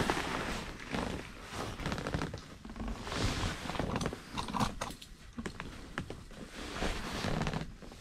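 Irregular rustling and shuffling with scattered light clicks from people moving and handling fishing gear.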